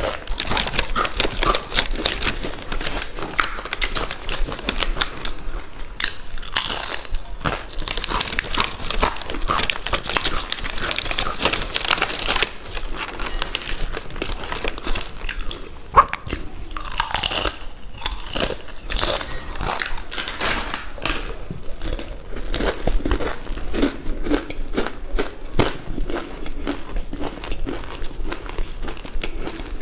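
Close-up eating sounds of crisp Balaji chips: rapid, irregular crunching and chewing throughout, with one sharper crack about halfway through.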